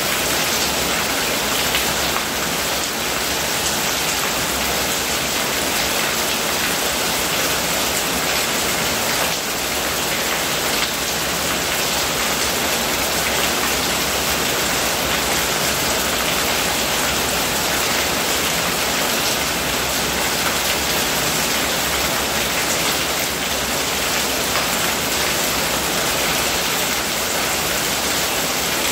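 Steady rain falling, with a stream of runoff pouring off the roof edge and splashing onto the ground.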